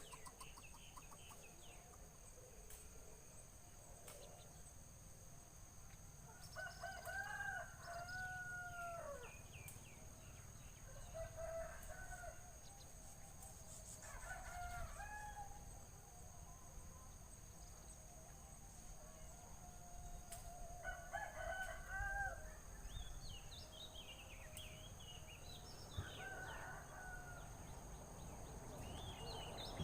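Rooster crowing several times, each crow a second or two long, with quick high-pitched chirps of small birds in between.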